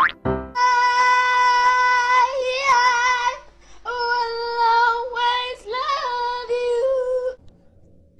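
A high-pitched singing voice holding long, steady notes, broken by a few short pauses and one wavering stretch, stopping shortly before the end.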